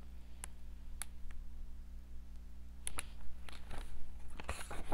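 Paper page of a picture book being handled and turned: a few light clicks and taps, then rustling of the page as it is flipped, louder near the end, over a low steady hum.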